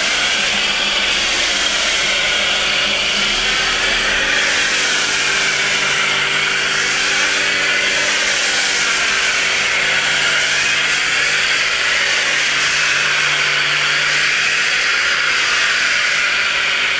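Pressure washer running with a snow foam lance, spraying a steady, gently wavering hiss of foam onto car bodywork, with a steady machine hum underneath.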